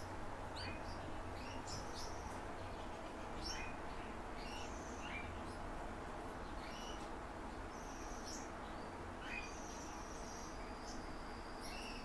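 Canaries giving short, scattered high chirps and calls, with a few longer held high notes about eight seconds in and near the end, over a steady low hum.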